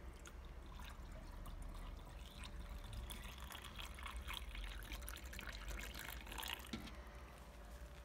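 Tap water poured from a jug into the water tank of a steam-vacuum cleaner, splashing and trickling as it fills. The pour starts about a second in, grows louder in the middle and stops about seven seconds in.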